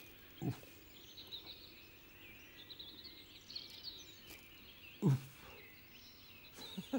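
Two short low thumps, about half a second in and again about five seconds in: a bait catapult being shot twice. Small birds chirp and trill in the background.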